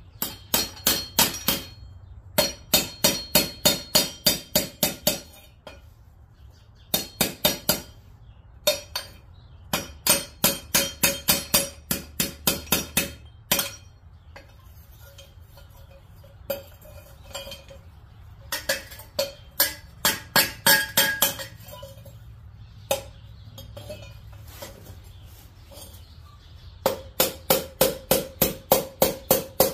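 Hammer tapping the slotted end of a thin-wall galvanized steel pipe, about five ringing metallic taps a second in runs of a few seconds with short pauses. The pipe end is being hammered from an oval into a round shape to fit a turbo inlet flange.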